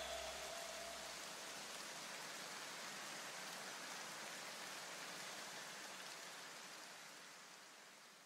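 Faint, even hiss with a rain-like or static texture that fades out near the end. The last notes of the backing music die away in the first second or two.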